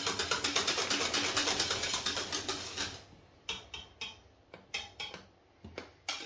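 Wire whisk beating thick pastry cream in a stainless steel saucepan: rapid, rhythmic clicking and scraping against the pan, several strokes a second, as the custard cooks and thickens. About three seconds in the whisking stops, leaving a few separate taps of the whisk on the pan.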